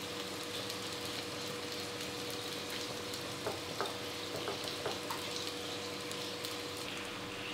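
Chicken dumplings frying gently in a little oil in a non-stick pan on low heat: a soft, steady sizzle with fine crackles. A few light taps about halfway through as another dumpling is set down in the pan.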